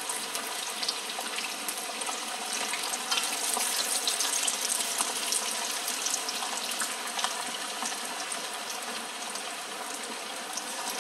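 Marinated, tapioca-coated chicken pieces deep-frying in hot oil, freshly added: a steady sizzle thick with small crackles and pops.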